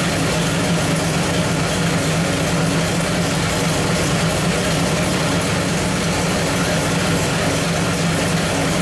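Small-block Chevrolet 434 V8 running steadily on an engine dyno, holding an even speed without revving.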